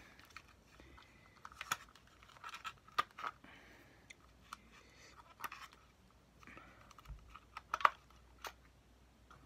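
Faint handling noise: scattered small clicks, scrapes and rustles of objects being handled, with one sharper click near the end.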